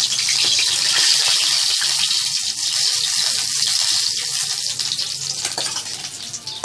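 Pieces of katla fish frying in hot mustard oil: a loud, steady sizzle that eases off over the last second or so.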